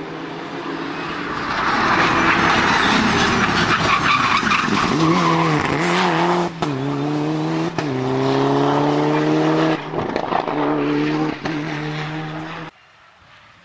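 Mitsubishi Lancer Evolution IX rally car's turbocharged four-cylinder engine approaching and passing flat out, loud. The engine note drops and climbs again several times as it shifts gear. The sound cuts off suddenly near the end.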